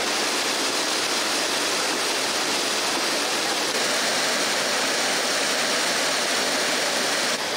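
Hot spring water pouring through wooden cooling channels in a steady, dense rush of water.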